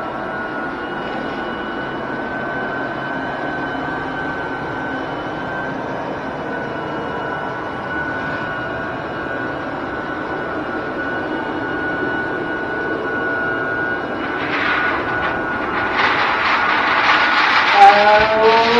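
Electric floor burnisher running steadily on a vinyl-composition-tile floor, a motor hum with a steady high whine. Near the end it gets louder, with a few sharp bursts.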